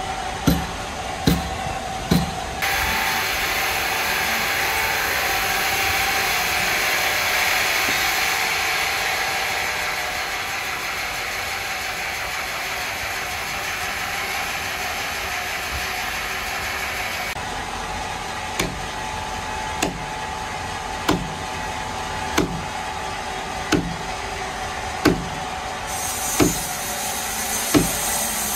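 Power wood saw cutting through timber for about fifteen seconds, a steady hissing cut that starts and stops abruptly. Before and after the cut the machine makes a regular knock about once a second.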